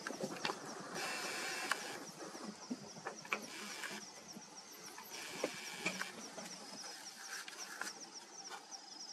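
Night insects, likely crickets, chirping in a steady train of rapid high pulses, with scattered sharp clicks and brief rustles over it.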